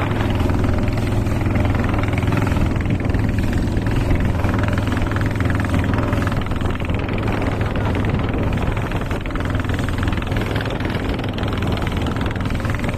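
Small fishing boat's engine running steadily under way, a constant low drone with no change in speed.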